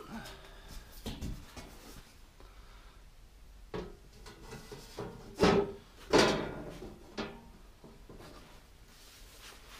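Aluminium checker plate sheet being handled and laid onto a Land Rover back door: a few knocks and scrapes of metal on metal, with two louder knocks a moment apart about halfway through.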